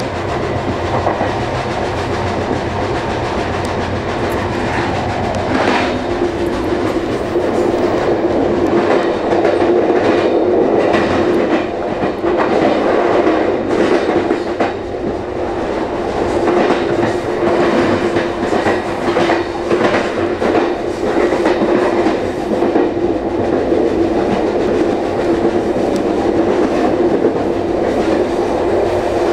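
Amtrak Northeast Corridor Regional passenger train running at speed, heard from its rear end: wheels clacking over rail joints and switches, with a steady hum underneath.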